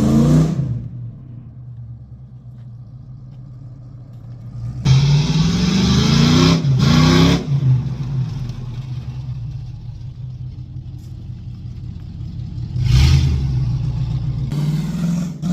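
Pickup truck's LS-swapped V8 engine idling and being revved: two quick revs back to back about five seconds in, and two more near the end, each rising then dropping back to idle.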